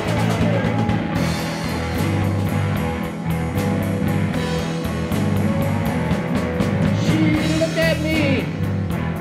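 Blues-rock band playing an instrumental break: a lead guitar bending notes over bass and drums.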